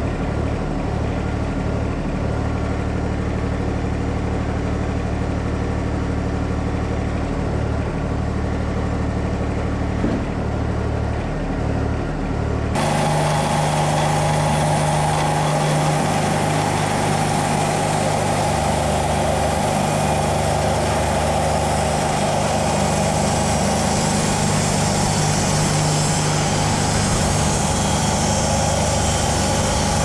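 Wood-Mizer LT40 Wide bandsaw sawmill running with a steady engine drone. About halfway through, the sound turns suddenly louder and brighter, with an even hiss as the band blade cuts through the log.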